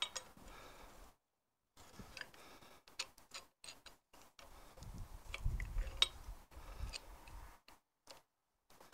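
Scattered light metallic clicks and ticks of a pipe wrench gripping and working a steel spacer rail in a tractor gearbox casing, with a louder low rumble of handling about five to seven seconds in.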